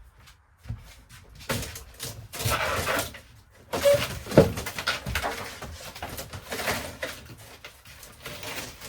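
Thin wooden wall paneling being pried and torn loose from a camper wall where it was glued: irregular bursts of cracking, scraping and knocking, with a brief squeak about four seconds in.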